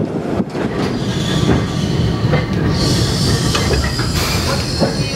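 Electric tram running along street track: a steady rumble of motors and wheels with occasional clicks over rail joints. About three seconds in, a high wheel squeal sets in and holds.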